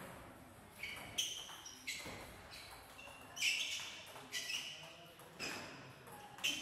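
Table tennis rally: the ball clicking off the players' rubber bats and the table, about eight sharp knocks spaced half a second to a second apart.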